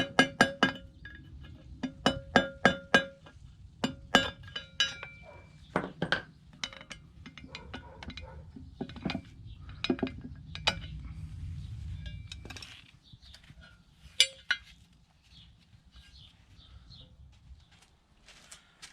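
Hammer blows on metal, each ringing briefly, in quick runs of several strikes, then fewer, scattered knocks.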